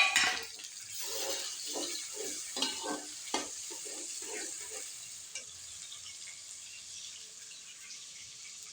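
Food dropped into hot oil in a cooking pot, with a sudden loud sizzle, then a spoon stirring and scraping the pot in quick strokes, two or three a second, over a steady sizzle that settles down toward the end.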